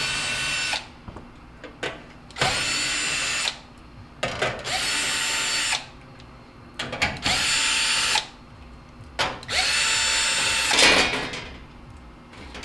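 Cordless drill/driver run in five short spurts of about a second each, with a steady motor whine, backing out the screws of a range's cover panel.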